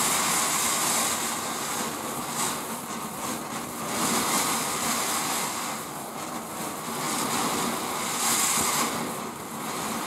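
Ground fountain firework hissing steadily as it sprays a column of sparks, the hiss swelling and easing every few seconds.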